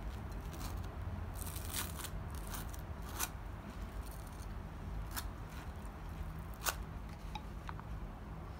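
Scattered short, sharp clicks and scrapes of small objects being handled, the strongest about 3 s in and just before 7 s, with two light clicks that ring briefly near the end, over a steady low hum.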